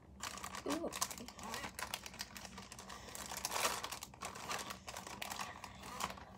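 Quick, irregular small clicks, taps and rustles of makeup containers and packaging being handled and rummaged through, busiest about halfway through.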